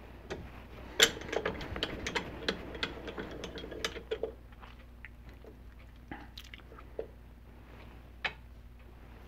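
Mini mill's table and head being moved by hand: a run of clicking and rattling from the cranked handwheel and leadscrew lasts about three seconds from a second in, then a few single clicks and taps follow. A faint steady hum runs underneath.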